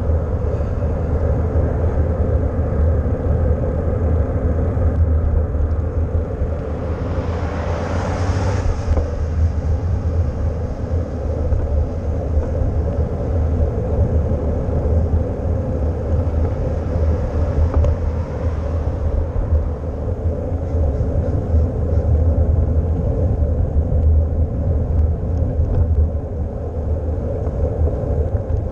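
Wind noise on a bicycle-mounted action camera's microphone while riding, with tyre noise on the road underneath. A vehicle passes about seven to nine seconds in, its noise swelling and fading over a couple of seconds.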